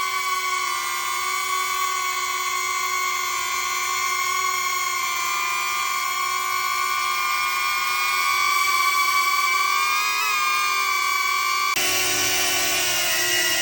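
Drone propellers whining steadily, with a brief wobble in pitch about ten seconds in. Near the end the sound switches abruptly to a different, rougher whine.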